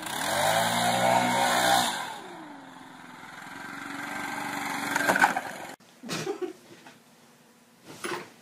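Gas backpack leaf blower's two-stroke engine revving, easing off about two seconds in with a falling pitch, then building up again before stopping abruptly. A few faint thumps follow.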